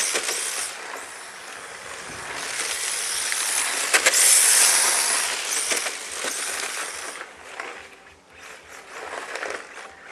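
HPI Sprint 2 radio-controlled drift car with a brushless motor sliding across asphalt on hard drift tyres, making a hiss that swells loud twice and fades away after about seven seconds.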